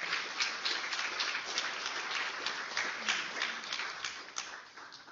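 Audience applauding: many people clapping for several seconds, dying away near the end.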